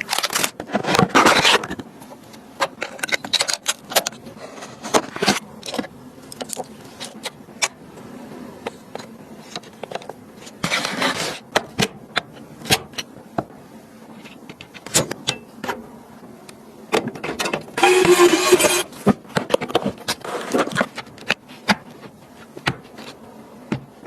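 Hands working on computer parts during a PC build: scattered sharp clicks and taps, with a few bursts of rustling and scraping, loudest a little before the end.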